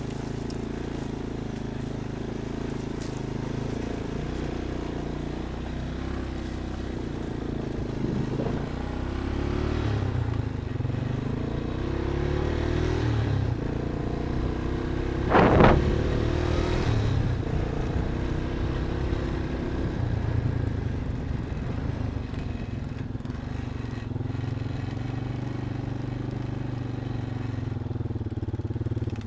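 Off-road vehicle engine running under changing load as it drives, its pitch shifting up and down. A brief, sharp loud burst comes about halfway through.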